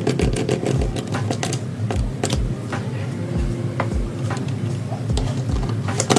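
Background music with a steady low beat and a sustained bass tone, with scattered sharp clicks and taps over it.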